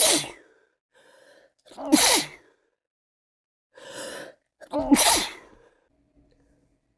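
A person with a cold sneezing three times: a sneeze right at the start, then two more about two and five seconds in. Each of the later two comes after a short intake of breath.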